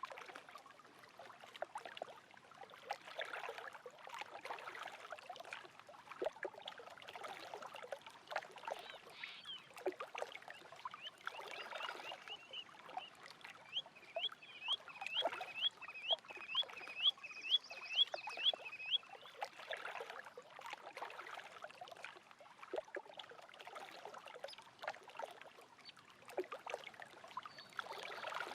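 Small lake waves lapping and splashing at the shore in a steady patter of little water sounds. Near the middle a bird calls a run of about a dozen short, rising, squeaky notes, about two a second.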